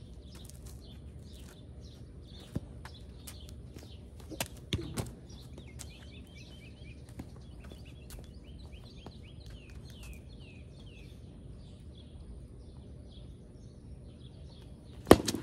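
Small birds chirping over a steady low outdoor background, with a few faint knocks. Near the end, one sharp loud crack of a plastic wiffle bat hitting a wiffle ball.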